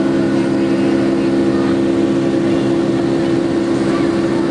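Steady cabin drone of a Boeing 757 climbing after take-off, heard beside the wing engine: jet engine hum with a few steady low tones over a rushing airflow noise.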